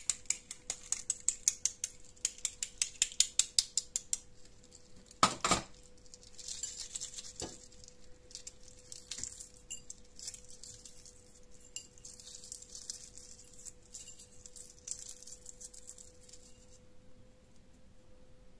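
A table knife tapping rapidly on a hard-boiled egg to crack the shell, a quick run of light clicks, then a louder knock about five seconds in. After that comes soft crackling as the cracked eggshell is peeled away by hand.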